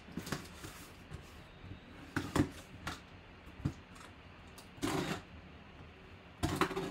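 A knife slitting the tape seal of a cardboard box while the box is handled and turned: scattered scrapes and taps on the cardboard, with a longer scrape about five seconds in and another near the end.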